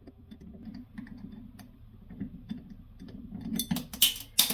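A 1/8 inch hex wrench turning out the set screw that holds the faucet handle: a run of small, light clicks and ticks of metal on metal. Near the end come a few louder scraping, clattering sounds.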